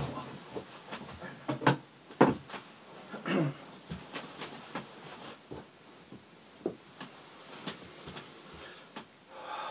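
A person shifting and settling in an upholstered armchair: scattered knocks and creaks of the chair, with clothing rustle. The loudest knocks fall about two seconds in, and the sounds thin to faint ticks in the second half.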